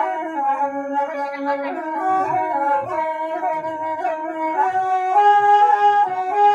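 Toraja suling bamboo flute music: a slow, plaintive melody of long held notes that step up and down, getting a little louder about five seconds in.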